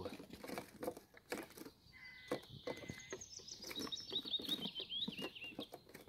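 A songbird singing: one held whistle about two seconds in, then a run of quick warbling notes, over scattered light taps and rustles.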